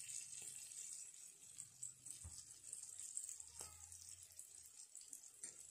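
Onions frying in oil in a kadai, sizzling faintly, with a couple of faint ticks.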